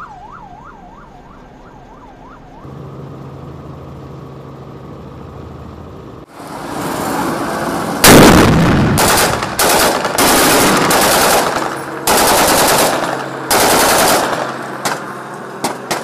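Long bursts of automatic gunfire, one after another, starting about eight seconds in; they are the loudest sound. Before them a siren yelps briefly, then a steady low hum runs for a few seconds.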